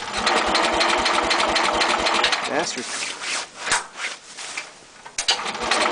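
Snowblower engine cranking on its electric starter without catching, a fast even chugging in two long bursts with a short pause a little after halfway. It is a hard cold start, which the owner puts down to leaving the choke on too long.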